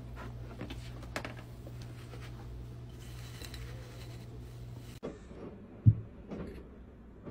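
A steady low hum with a few light clicks. After a cut it turns quieter, with soft taps and one sharp knock about six seconds in as a hand handles a glass storage jar.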